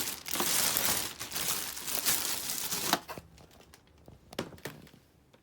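Packaging being handled and rustled, crinkling for about three seconds, then a few faint clicks and light knocks.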